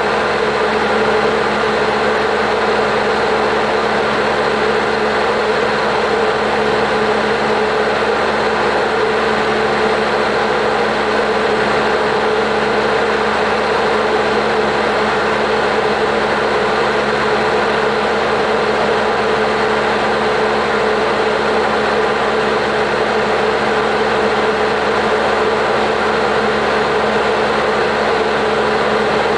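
Engine and propeller of a Diamond DA40 Diamond Star heard from inside the cockpit on final approach to landing: a loud, steady drone with an even hum that does not change.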